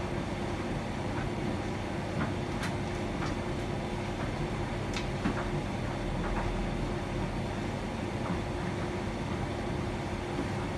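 Hotpoint tumble dryer running with a steady hum and a constant low tone, while a mixed load tumbles in the drum with scattered light clicks and taps.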